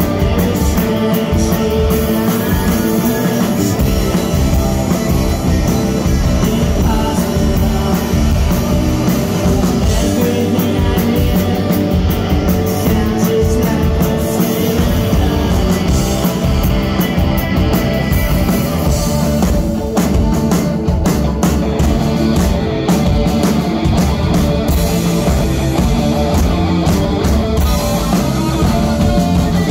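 Live rock band playing loudly, a full mix with drums carrying on without a break.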